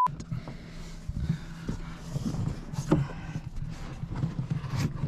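Close handling noise: the camera rubbing and bumping against clothing, with scattered knocks and clicks over a low steady hum.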